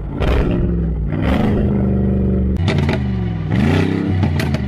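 A vehicle engine revving up and down several times, its pitch climbing and falling, with a few sharp clicks between the revs.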